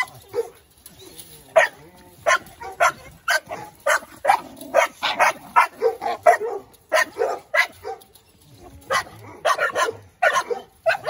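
Several young pit bull dogs in a chain-link pen barking and yipping repeatedly, short sharp barks about two or three a second, with a brief lull about eight seconds in.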